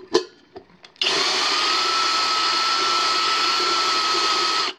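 Drill press spinning a countersink bit against a drilled hole in a stainless steel pot bottom to take off the burr. After a few light clicks it starts about a second in as a loud steady whir with a steady high whine, then stops abruptly just before the end.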